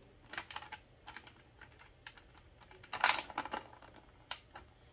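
Small metallic clicks and taps as a nut and washer are fitted back by hand onto a fuse box's terminal stud over a ring terminal, with a louder scraping rustle about three seconds in.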